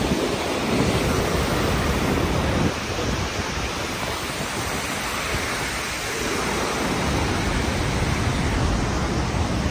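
A large waterfall and the rapids below it: a loud, dense, steady rush of falling and churning water.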